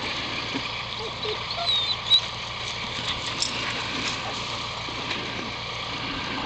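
An engine idling steadily, with a few faint short squeaks and one sharp knock about two seconds in.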